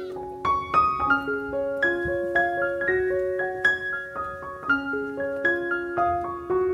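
Piano music: a gentle melody of single struck notes over held lower notes.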